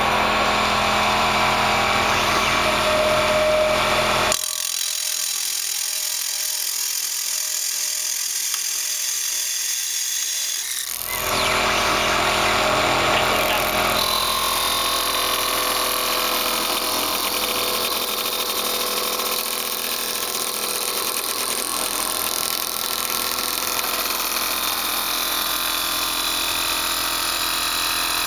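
CNC wood lathe turning a wooden blank with two cutting tools: a continuous hissing cut of tool on spinning wood over the steady run of the machine. The lower part of the sound drops away for several seconds about four seconds in, then comes back.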